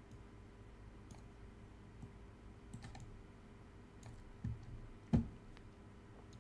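Faint, scattered computer mouse button clicks while dragging in software, over a low steady room hum, with a louder knock about five seconds in.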